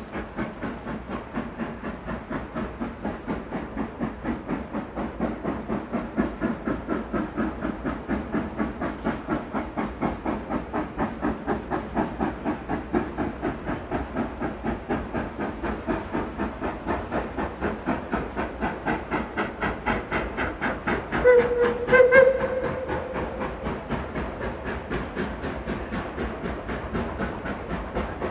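Reading & Northern 2102, a 4-8-4 steam locomotive, working with a steady, even beat of exhaust chuffs and a hiss of steam. About three-quarters of the way in it gives two blasts on its steam whistle, a short one and then a longer one.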